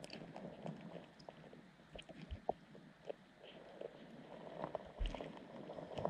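Underwater sound heard through a submerged camera: scattered small clicks and crackles over a low water rumble, with a dull thump about five seconds in.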